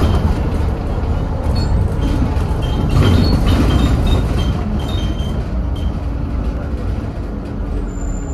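Scania N230UD double-decker bus heard from inside while driving: its five-cylinder diesel engine and road noise make a steady low rumble that swells about three seconds in and eases slightly after, with a few faint high squeaks or rattles.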